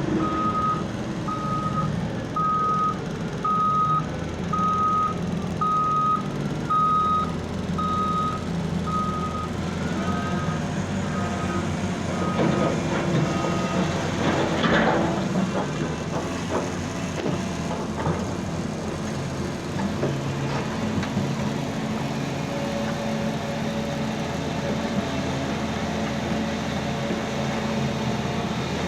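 Reversing alarm on a heavy diesel machine beeping a little faster than once a second over the steady rumble of its engine; the beeping stops about halfway through and is followed by a short burst of clattering and knocks.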